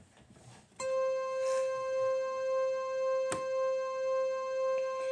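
A steady, buzzy electronic tone with many overtones starts abruptly about a second in and holds one pitch, its loudness swelling and fading gently a bit faster than once a second; a single sharp click cuts through it about three seconds in.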